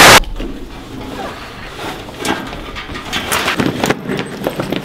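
A loud hiss of TV static that cuts off sharply a moment in, then quieter room noise with scattered short clicks and rustles.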